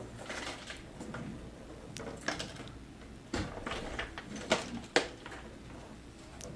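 Quiet handling noise: scattered light clicks, knocks and rustles, with a few sharper knocks in the middle and second half, as the old arch-top guitar is handled.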